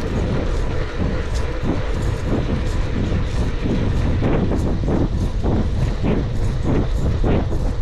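Wind buffeting the microphone over the rumble of a fixed-gear bicycle rolling on rough, cracked asphalt, with irregular clatters and rattles from the bike over the bumps.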